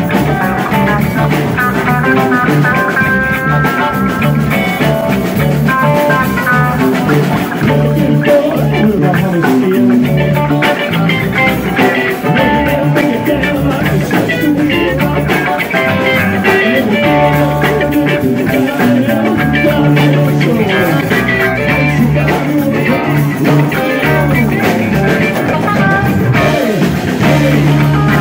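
Live jam band playing a loose rock groove: two electric guitars trading lines over bass, drums and Hammond organ, at a steady loud level with no break.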